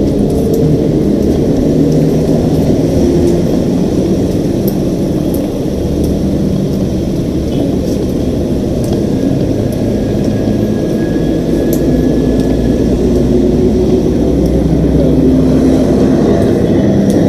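Motor vehicle running: a steady low rumble with engine tones that shift slightly in pitch.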